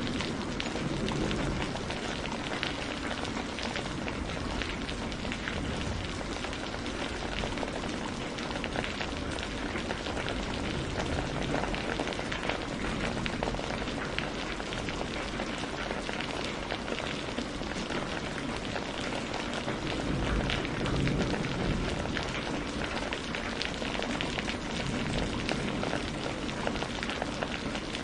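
Steady rain falling, a dense even hiss of many small drop impacts.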